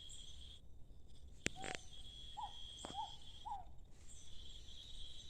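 Insects trilling in a steady high buzz that breaks off and resumes. Around the middle there is a sharp click, followed by three short chirps about half a second apart.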